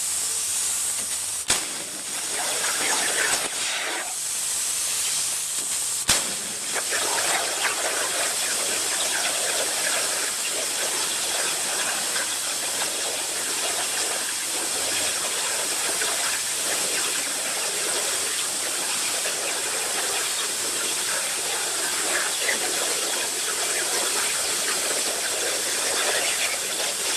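CNC plasma cutter's torch cutting metal: a steady loud hiss of the plasma arc and air jet, with two sharp clicks in the first few seconds.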